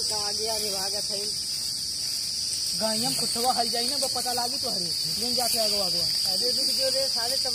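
Steady, high-pitched drone of insects, with people's voices talking over it from about three seconds in.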